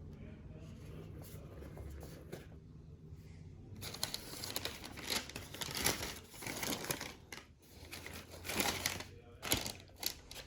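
Packaging crinkling and rustling in a string of bursts, starting about four seconds in, as the box contents are handled.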